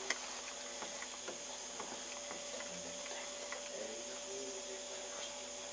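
Duel Masters trading cards being handled and set down, faint scattered clicks and taps with a sharper click right at the start, over a steady electrical hum.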